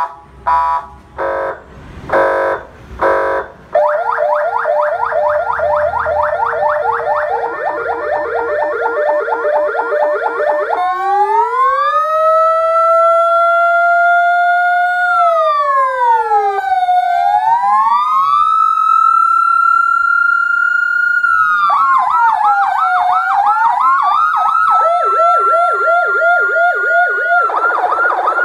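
Electronic emergency-vehicle siren run through its tones. It opens with about five short horn blasts, then a fast yelp, then a slow rising and falling wail, and ends with quicker warbling patterns.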